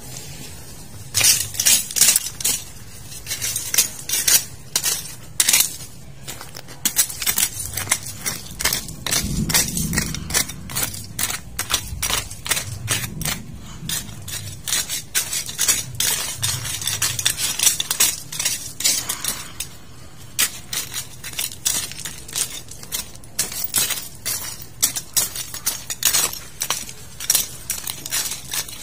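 Rapid, irregular clinks and scrapes of hard objects knocking together, with a few dull low thumps between about nine and fourteen seconds in.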